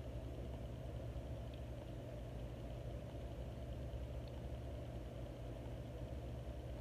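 Steady low mechanical hum that runs on without change.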